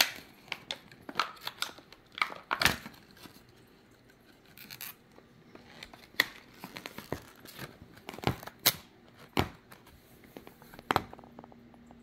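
Toy packaging being cut and torn open: a string of sharp, irregular snips, snaps and crinkles with short pauses between.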